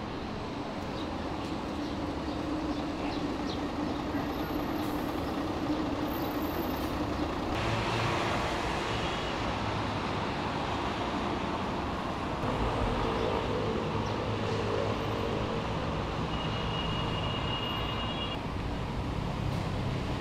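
Steady road traffic noise, a continuous rumble and hiss with faint engine hums in it.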